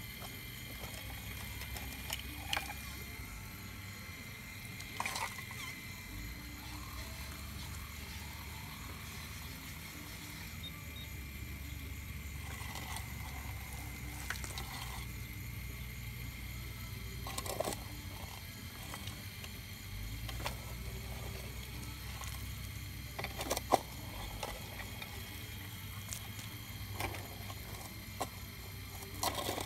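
Radio-controlled scale-model Cat 349 excavator digging: a low motor hum that rises and falls as the arm and bucket move, with scattered clicks and knocks of the bucket scraping and shifting pieces of shale, the sharpest about three-quarters of the way through.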